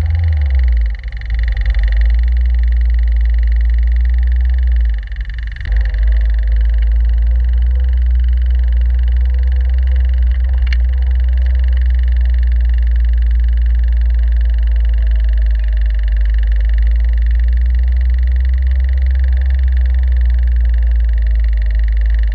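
Caterham Seven's engine running at low parade speed, heard from the open cockpit as a loud, steady, deep rumble that eases off briefly about a second in and again around five seconds in.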